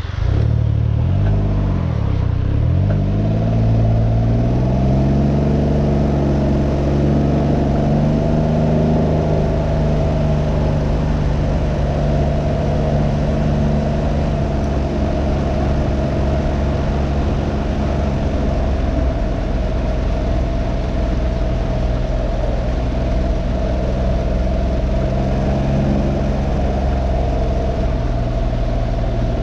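Can-Am Ryker 900's Rotax three-cylinder engine pulling away: its note wavers, then climbs over the first few seconds and settles into a steady cruising drone. Wind rushes over the microphone underneath.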